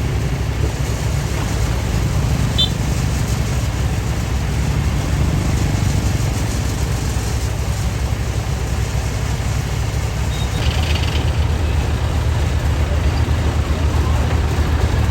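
Diesel engine of a rice combine harvester running steadily under load, a deep continuous rumble. A couple of brief faint high squeaks come about two and a half seconds in and again near eleven seconds.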